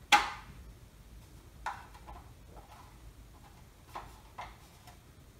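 A sharp knock right at the start, then a few softer knocks and taps: handling noise as a long model warship is picked up and lifted from the table.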